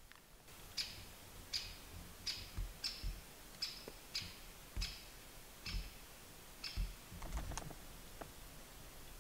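Footsteps at walking pace: a series of about nine short, sharp clicks, each with a soft low thud.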